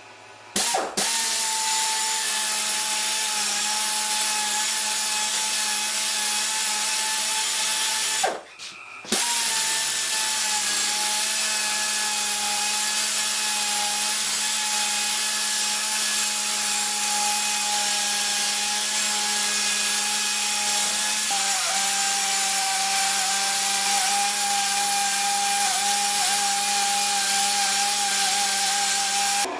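Electric drill spinning a wire wheel on a long ground-rod extension, scrubbing out the inside of the drill-press quill's bore: a steady motor whine with wire-brush hiss. It starts about a second in, stops briefly around eight seconds, then runs steadily again.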